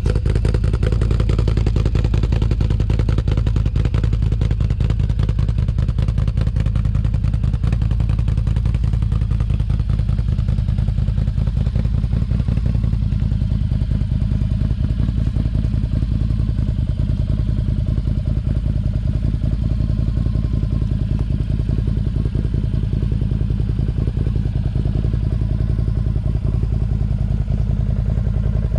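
Can-Am Outlander XMR 1000's V-twin engine running steadily through an aftermarket Yoshimura exhaust, with a deep, even exhaust beat and no big revs.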